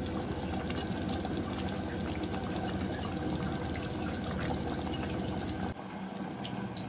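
Thin, watery mutton curry gravy simmering in a steel pan, a steady bubbling hiss of liquid; it drops a little quieter near the end.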